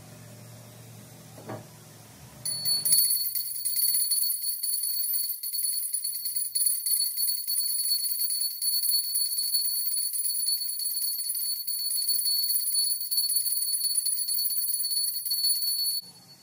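Handheld puja bell rung rapidly and without pause during the camphor aarti. It is a steady, high, bright ringing that starts about two and a half seconds in and stops abruptly near the end.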